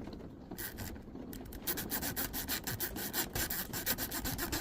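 Plastic zip tie raked rapidly in and out of the keyway of an M&C Condor lock, a fast rasping scrape of many strokes a second. It begins with a few light scrapes and speeds up into steady raking a little under two seconds in.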